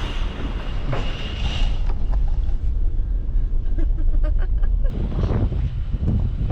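A car driving on a rough back road: a steady low rumble of engine and tyres, with wind buffeting the microphone and scattered light clicks in the middle.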